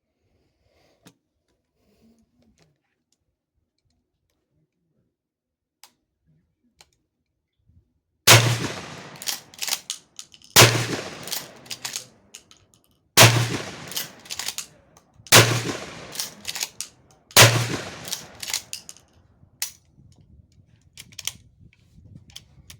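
Remington 870 20-gauge pump-action shotgun fired five times, about two seconds apart, with echo and smaller clatter after each shot.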